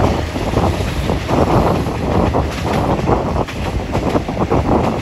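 Rushing, buffeting wind on the microphone out of the open window of a moving local passenger train, mixed with the train's running noise on the track.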